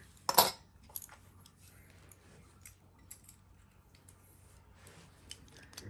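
Metal Fight Beyblade parts being sorted by hand: one sharp click about half a second in, then scattered faint clicks and ticks of small metal and plastic pieces knocking together.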